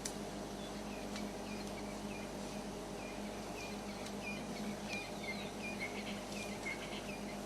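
Bush ambience: short high chirps repeated many times, growing denser after about three seconds, over a low steady hum with a few faint snaps.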